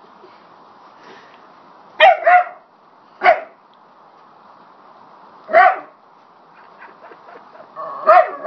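A dog barking at a small porcelain puppy figurine: a quick double bark about two seconds in, single barks spaced a second or two apart, and another double bark near the end.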